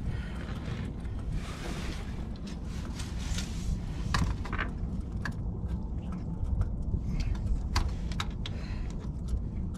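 Scattered clicks and light knocks as a caught sturgeon and a measuring tape are handled, over a steady low rumble.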